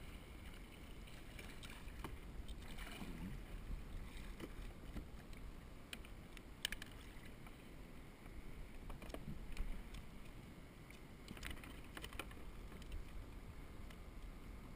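Water lapping around a plastic sit-on-top kayak, with a handful of sharp knocks and taps on the hull while a caught sea bass is handled in the boat; two louder knocks fall near the middle.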